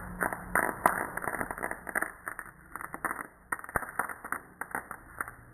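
Homemade Beakman-style electric motor sparking at its coil contacts: a rapid, irregular crackle of small snapping arcs, thinning out over the last couple of seconds. The wire's insulation is melting away under the arcing.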